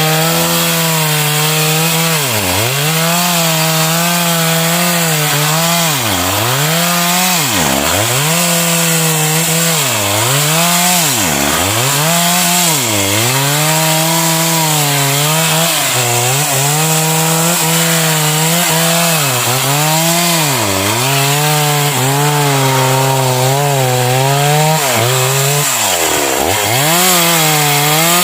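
Stihl MS 381 two-stroke chainsaw running at high revs while cutting into a sengon (albizia) trunk. Its engine note drops sharply and recovers about every two seconds as the chain works through the wood.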